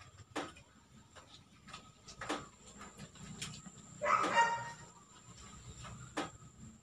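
A few sharp, separate clicks, and about four seconds in a short high-pitched yelping cry.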